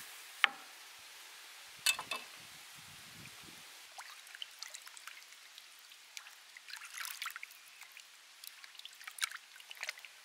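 A large knife scoring raw pork knuckle on a wooden cutting board, with sharp knocks on the board about half a second in and about two seconds in. From about four seconds on, hands wash pork knuckles in a metal basin of water, with small splashes and trickling.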